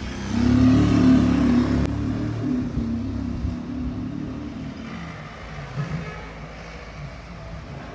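A motor vehicle's engine, swelling loud about half a second in and then slowly fading away, with a sharp click about two seconds in.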